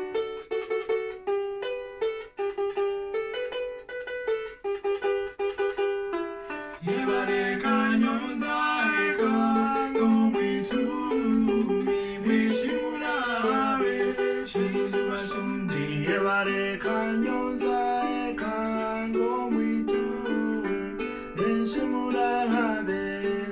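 Ugandan traditional folk music on a plucked string instrument playing a repeating melody of short notes. About seven seconds in, the music grows fuller and louder as a second part with sliding pitches joins.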